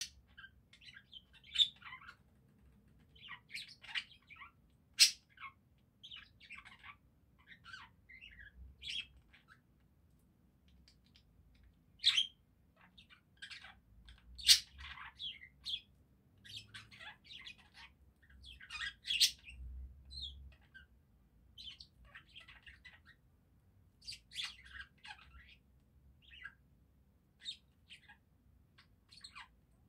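Budgerigars warbling and chattering: an irregular, continuous run of short chirps and twitters, with a few louder, sharp chirps scattered through.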